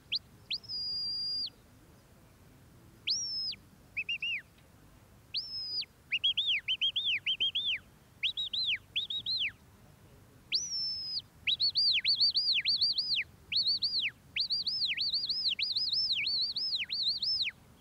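Sheepdog handler's whistle commands to a working Border Collie herding sheep. A string of clear, high whistles: a few long held notes, then short rising-and-falling calls. From about twelve seconds in they come as a quick, repeated run.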